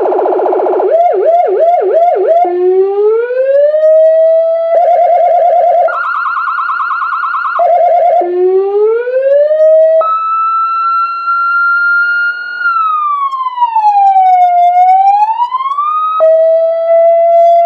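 AS820 200-watt electronic siren amplifier sounding through a siren speaker and switching between tones. It opens with a harsh horn blast and a fast yelp of quick up-and-down sweeps. Upward sweeps and a two-tone high-low alternation follow, then a slow wail that falls and rises again, settling onto a steady tone near the end.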